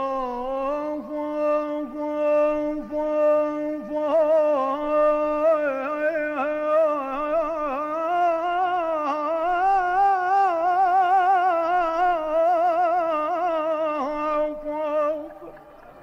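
Music: a single singer holds one long, drawn-out note in Arabic mawwal style. The singer slides up into it at the start, then sustains it with a wide, wavering vibrato that climbs higher in the middle and drops off about a second before the end.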